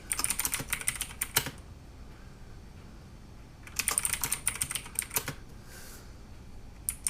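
Typing on a Drevo 84-key mechanical keyboard with clicky Outemu blue switches (Cherry MX Blue clones). There are two quick runs of keystrokes of about a second and a half each, with a few more clicks near the end.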